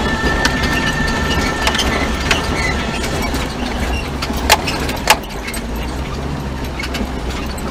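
Jeep Wrangler TJ's engine running steadily at low speed as it crawls up a rough dirt trail, with the body and loose gear rattling and knocking over the bumps; two sharp knocks stand out about four and a half and five seconds in. A faint thin high tone sounds for the first three seconds or so.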